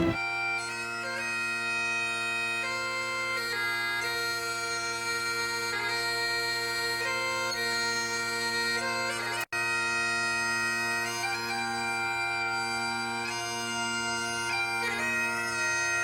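Bagpipe playing a slow tune over its steady drones, with a momentary dropout in the sound about halfway through.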